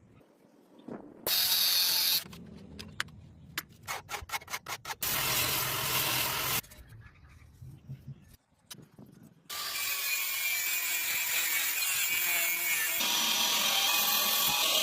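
Metalworking sounds cut together while a coil spring is made into a blade: a short noisy burst, a run of quick, sharp metallic strikes, then a long steady grinding hiss with a faint falling whine.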